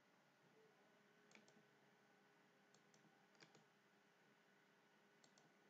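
Near silence: room tone with four faint pairs of computer mouse clicks spread through it.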